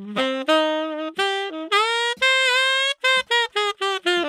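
Tenor saxophone playing a melodic phrase: a few separate notes, a long held note that bends slightly near the middle, then a quick run of short detached notes. Played in a small room lined with wooden acoustic diffuser panels.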